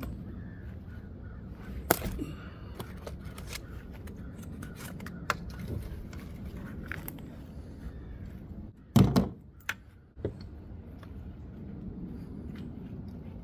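Clicks and knocks from hand-assembling an electric scooter's handlebars and stem with a small hand tool: scattered sharp clicks, with a louder cluster of knocks about nine seconds in. A steady low rumble runs underneath.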